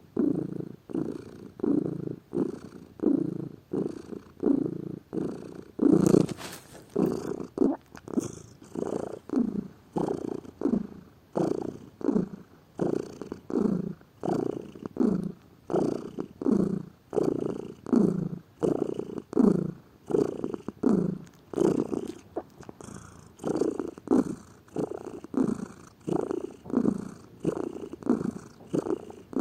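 Domestic cat purring close up, the purr swelling and fading in a steady rhythm of about one pulse a second as it breathes in and out. A brief louder noise breaks in about six seconds in.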